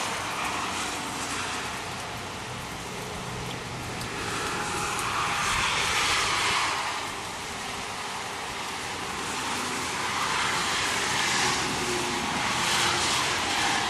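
Steady rain falling, an even hiss that swells and fades several times.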